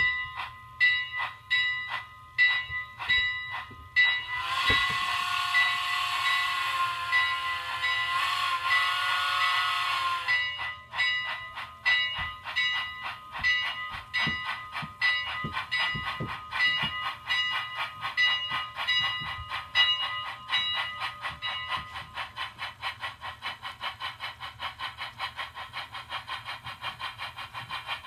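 Digital steam sound from a TCS WOW sound decoder in a Bachmann three-truck Shay model locomotive, played through a small speaker: steam chuffs, then about four seconds in a long multi-tone steam whistle blast with hiss lasting about six seconds. After the whistle the chuffs come faster and faster, reaching about three a second.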